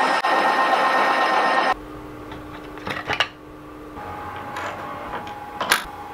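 Metal lathe cutting a mandrel blank, a steady machining whir that cuts off suddenly a little under two seconds in. Then a quieter steady hum, with a few sharp clicks and knocks as the toolpost's clamping lever is worked.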